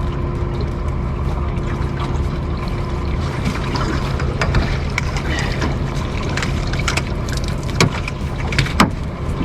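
Steady rain and water noise around a small anchored fishing boat, with scattered knocks and splashes as a mulloway is landed; the sharpest knocks come near the end.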